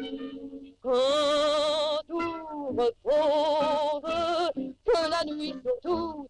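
A woman singing long held notes with a wide vibrato in several short phrases, some notes sliding down at their ends.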